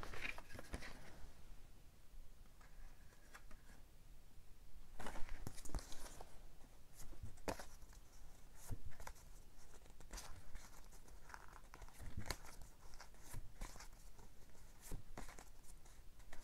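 Card lobby cards and plastic packaging being handled and shuffled: scattered short rustles, slides and small taps of card and plastic.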